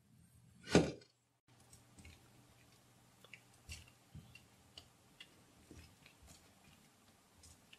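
A knife slices down through a block of kinetic sand with one loud, brief crunch about a second in. After a short break, crumbled kinetic sand falls onto a pile with a scatter of small crackles and ticks.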